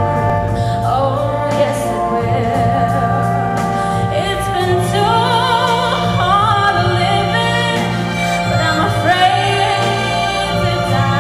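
A woman singing a slow melody with vibrato into a microphone, amplified through an arena PA over sustained backing chords; her voice grows stronger about four seconds in.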